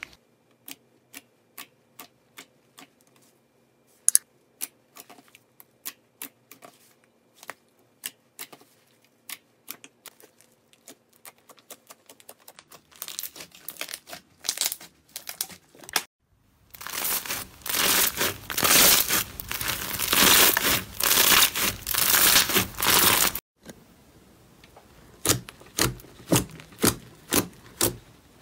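Slime and a gel squeeze toy worked by hand, making sticky clicks and pops: single clicks about two a second at first, growing denser, then a long loud stretch of dense crackling and popping that cuts off suddenly, followed by sparser pops near the end.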